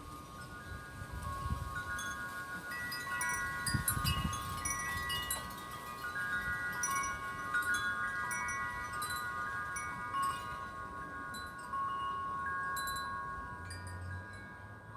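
Wind chimes ringing in the breeze: many overlapping, sustained metallic notes struck at irregular moments. There are brief low rumbles of wind about a second and a half in and again about four seconds in, the second the loudest moment.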